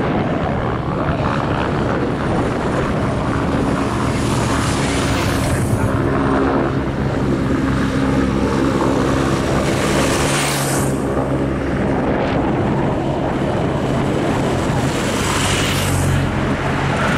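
Race motorcycles passing one after another over a steady engine drone, with wind on the microphone. Near the end, the peloton of racing bikes goes by.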